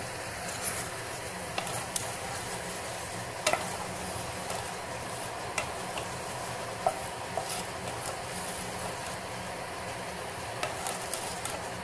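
Mustard and cumin seeds sizzling in hot oil in a pan, with scattered sharp pops as the seeds splutter: the sign that the oil tempering is ready.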